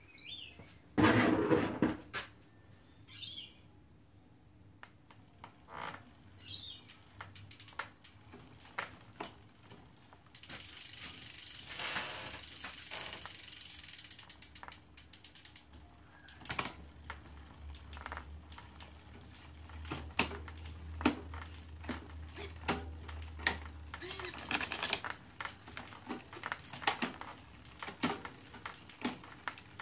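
Shimano Ultegra 6870 Di2 electronic drivetrain being shifted through the gears with the crank turned by hand: short whirring chirps from the derailleur motors and repeated clicking as the chain steps across the cogs, with a few seconds of steady drivetrain running around the middle.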